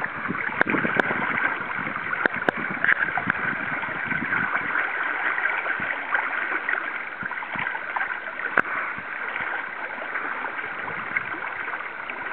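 Steady rush and gurgle of a wide river's current, with a few light clicks.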